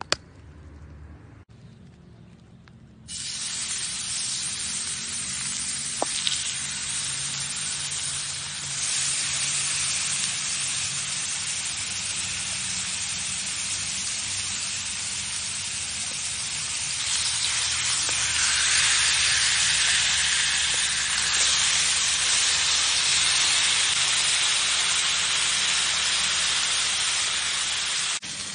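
Raw lamb chops and T-bone steak sizzling in a hot ridged grill pan. The sizzle starts suddenly about three seconds in as the meat meets the pan, then holds steady and grows louder in steps as more pieces go in.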